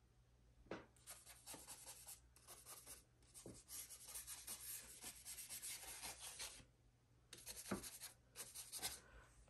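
Faint rubbing of an ink blending brush worked across paper, applying tan Distress Ink in spells of short back-and-forth strokes with brief pauses between them.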